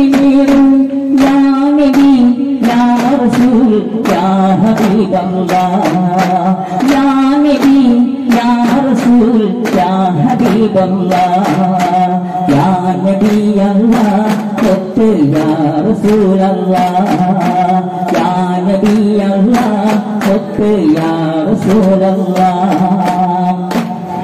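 Daf frame drums beaten together in a fast, steady rhythm, under a sung melody with long held notes.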